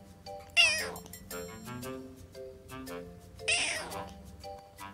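Tabby kitten meowing twice, high-pitched calls that fall in pitch, the first about half a second in and the loudest, the second about three and a half seconds in. Background music with short plucked notes runs underneath.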